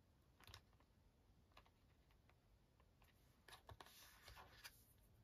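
Near silence, with a few faint clicks and taps of card and craft tools being handled, most of them bunched in the second half.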